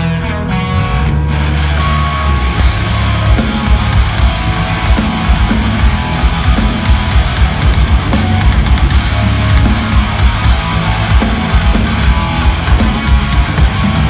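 Live heavy rock band playing loud through a PA: distorted electric guitars on held notes, then about two and a half seconds in the drum kit and full band come in with a steady driving beat.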